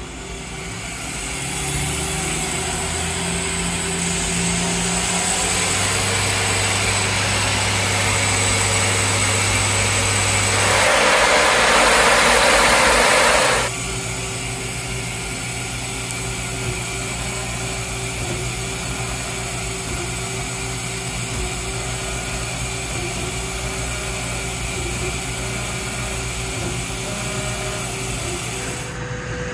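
Mazak i-100 S CNC multi-tasking machine running under power: steady motor hums and whines whose pitch shifts in steps as its axes and milling head move. About eleven seconds in, a loud hiss lasts about three seconds and then cuts off sharply.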